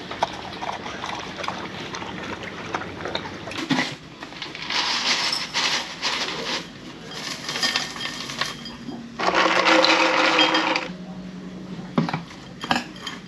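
A dog eating from a steel bowl, then dry cereal poured from a canister into ceramic bowls in several pours, the longest and loudest near the end.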